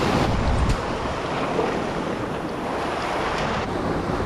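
Sea waves washing and foaming over shore rocks, with wind buffeting the microphone; the rush is loudest in the first second.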